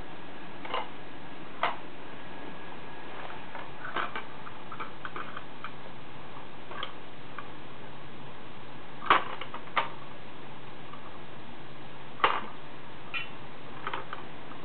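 Beads clicking and knocking along the wire bead maze on top of a plastic toddler activity cube as they are pushed by hand. The clicks come singly and at irregular intervals, with two sharper, louder knocks in the middle of the stretch.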